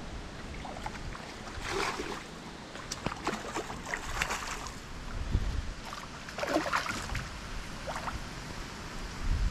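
A hooked tararira (Hoplias) splashing and thrashing at the water's surface close to the bank as it is reeled in, in a few irregular bursts.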